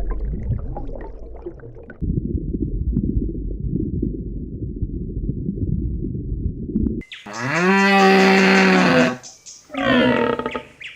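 A low, muffled rumble, then about seven seconds in two loud, long, deep animal calls, the first about two seconds long and the second shorter, each dropping in pitch at its end.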